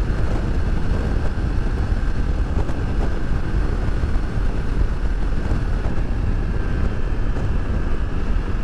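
A motorcycle riding steadily at speed: an even rush of wind and road noise, heaviest in the low end, with a faint steady high whine.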